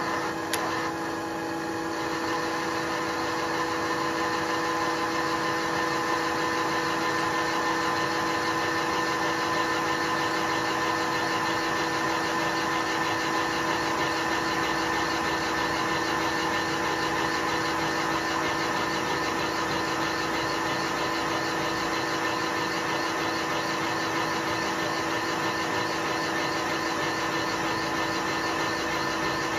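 Milling machine running on power feed, its cutter cutting a valve seat insert recess into a standard 850cc A-series cast-iron cylinder head: a steady hum holding several fixed tones over a noisy cutting hiss.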